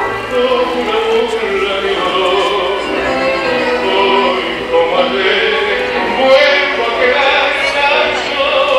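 Music playing, with singing voices over it.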